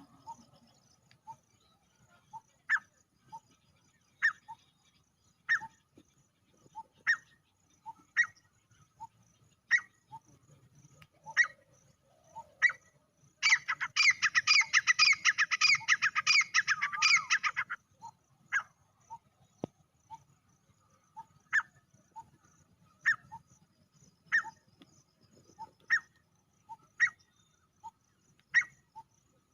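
Male grey francolin calling: short sharp notes repeated about every second and a half, with a loud, fast run of calls lasting about four seconds midway through.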